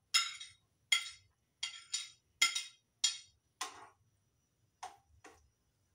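A metal spoon clinking against a plate and the pan rim, scraping chopped garlic into a hot pan: about nine sharp, irregular clinks with a short ring, weaker toward the end.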